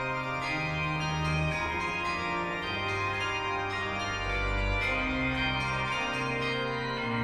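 Background music of slow, held chords over a bass line that changes note every second or so.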